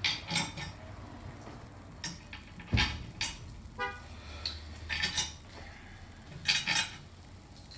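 Metal motor bracket and frame parts of a key machine being set down and fitted by hand: a string of irregular metallic clanks and clinks, about ten in all.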